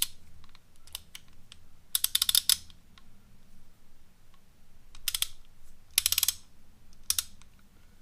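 Ratchet head of a Pittsburgh torque wrench being worked back and forth, the pawl clicking in several short runs of rapid clicks with scattered single clicks between.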